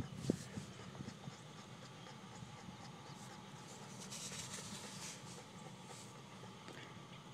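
Fingers scraping and rubbing wet, saturated sand rootzone mix in the side of a dug hole: a few soft knocks at the start, then faint gritty scraping that briefly grows hissier about four seconds in.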